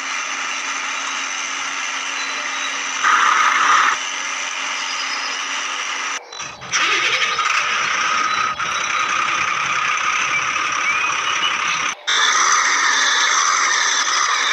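Small electric motors and plastic gears of remote-control toy vehicles whining steadily, with a brief louder stretch a few seconds in. The sound breaks off and changes abruptly twice.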